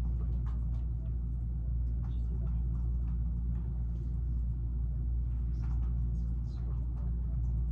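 Steady low hum and rumble of room background noise, with a few faint scattered clicks.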